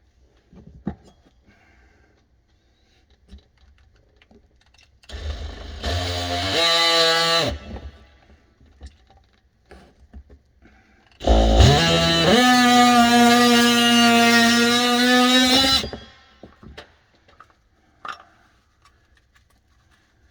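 Handheld power tool cutting a drain pipe to length, run twice: a short run of about two seconds, then a longer run of about four seconds that spins up in pitch and holds steady before cutting off.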